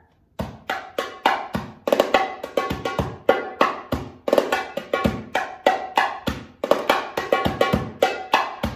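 Darbuka played in a quick rhythm with a scarf tucked loosely into its body to mute it a little; the sharp strokes still ring out clearly, with a few deeper strokes among them. The playing starts about half a second in.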